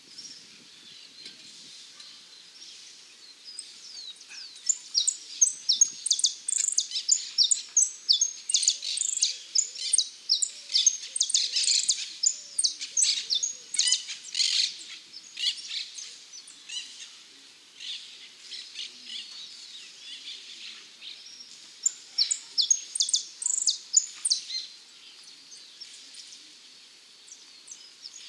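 Male saffron finch (dorado) singing in bouts of rapid, sharp, high chirps. A long burst runs from about four seconds to past the middle, and a second burst comes near the end.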